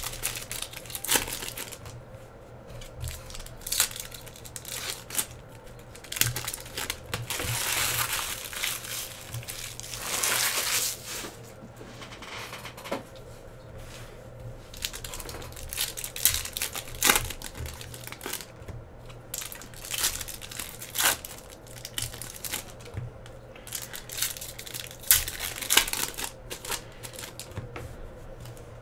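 Foil trading-card pack wrappers crinkling and tearing open, and a stack of hockey cards being handled and flipped through with many sharp clicks of card on card. The crinkling comes in a few longer stretches between the clicks.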